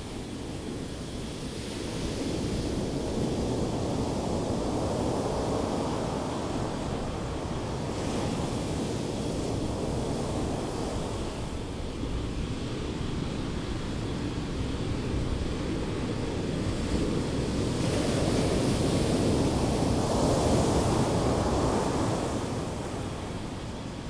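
Ocean waves breaking and washing up a sand beach, rising and falling in several long swells, the loudest a little before the end.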